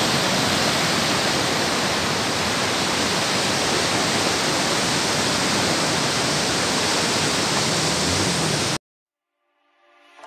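Fast irrigation canal water rushing and churning white below a head regulator's sluice gates: a loud, steady rush that cuts off suddenly about nine seconds in.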